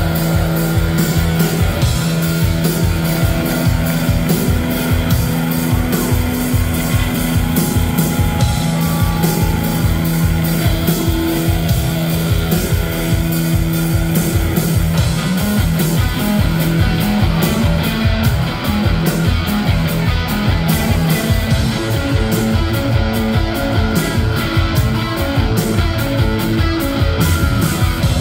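Live rock band playing an instrumental passage: electric guitars and bass over a steady drum beat, loud and full-band.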